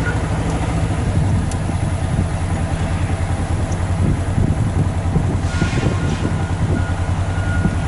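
Logging machinery's engine running steadily, with a backup alarm beeping again in the second half.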